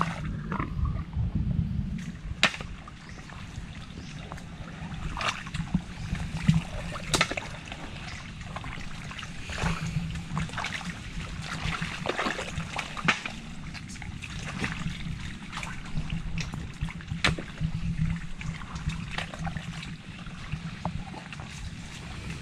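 Water splashing and trickling as people wade and dig by hand for lokan mud clams, with scattered sharp clicks and knocks throughout.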